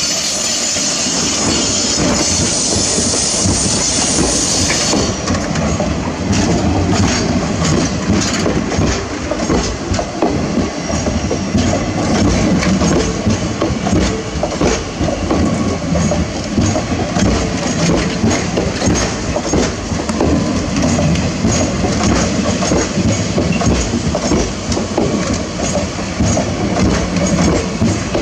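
Passenger train coaches running past close by, the wheels clattering over the rail joints in a continuous clickety-clack over a heavy rumble. A bright hiss sounds at first, as the electric locomotive's end goes by, and stops about five seconds in.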